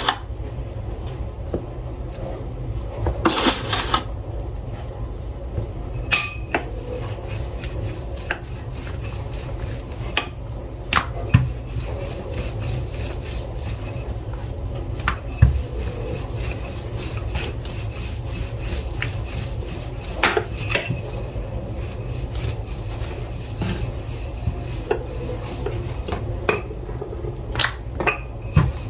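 Chapati dough being rolled out and worked by hand on a board, rubbing and scraping with scattered light knocks and taps, over a steady low hum from a dishwasher running in the kitchen.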